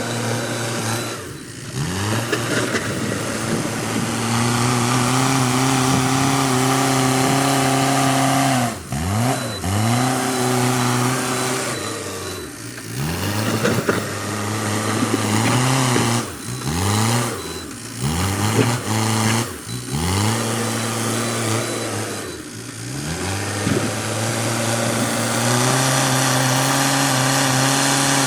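Backhoe loader's diesel engine running hard, its pitch dipping and climbing back up about seven times as the machine takes load working soil.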